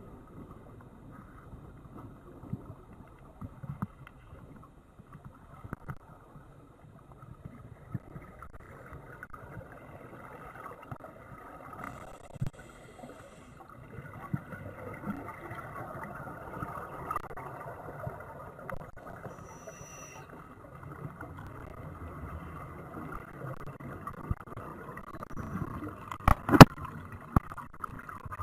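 Muffled underwater noise picked up through a camera's waterproof housing: an uneven low rushing with scattered small knocks, and a few sharp, loud knocks near the end.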